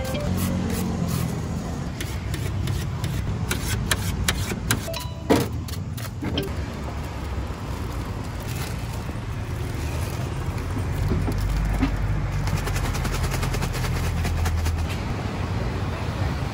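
Roadside ambience with a steady low rumble of motor traffic, swelling twice in the second half as vehicles pass. Sharp knife clicks and taps on a steel cutting tray come through the first half, the loudest about five seconds in.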